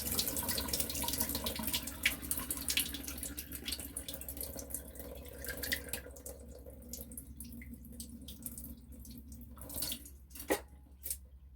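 Rinse water being poured off washed rice into a sink, splashing and trickling, thinning out after about six seconds to drips. A couple of sharp knocks near the end.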